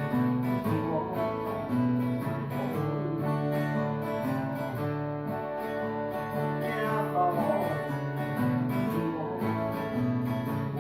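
Acoustic guitar playing an instrumental passage, picked and strummed chords with no singing.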